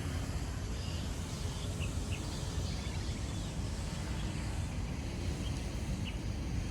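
Open-air park ambience: a steady low rumble with a few short, high bird chirps scattered through it.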